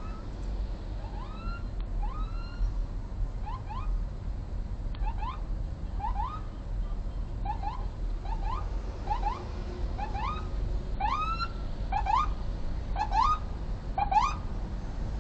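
Electronic vehicle siren sounding short rising whoops, mostly in quick pairs, about once a second, over a low road rumble.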